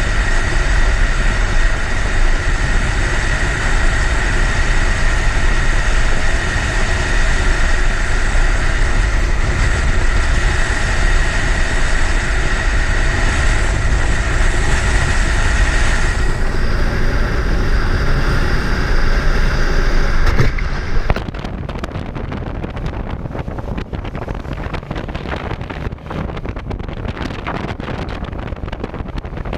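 Motorcycle engine running under way with heavy wind rushing over the microphone. About two-thirds of the way through, the sound drops abruptly to a quieter, crackly wind rush.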